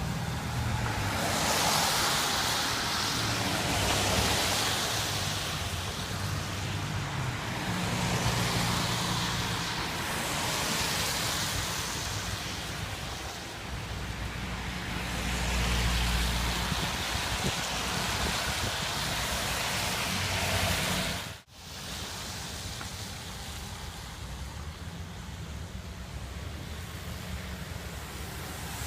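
Wind rushing across the microphone in a snowstorm, swelling and easing every few seconds over a low rumble. The sound drops out for a moment about two-thirds of the way through, then the wind noise resumes a little quieter.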